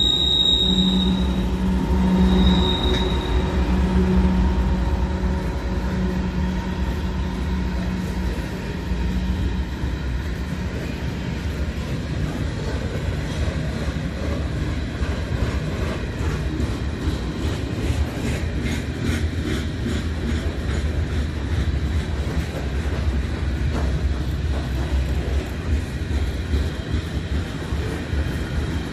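A freight train passing close by. A GE diesel locomotive's engine drone fades over the first several seconds, with two short high squeals near the start. Then covered hopper cars roll by with a steady rumble and wheel clatter.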